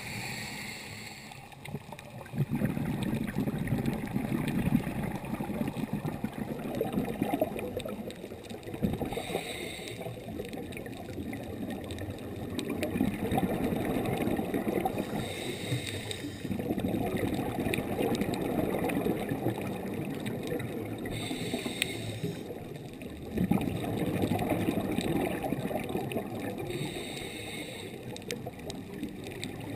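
A scuba diver breathing through a regulator: about five breath cycles, each a short hiss of inhalation followed by several seconds of burbling exhaled bubbles, repeating roughly every six seconds.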